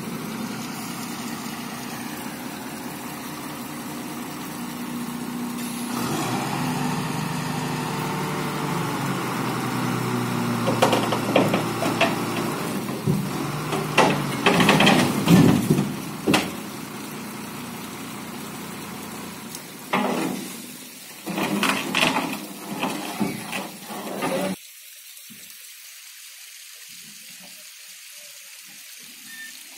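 A truck engine running, with a steady hiss and several spells of louder clattering and knocking; the sound drops away suddenly near the end, leaving a quieter hiss.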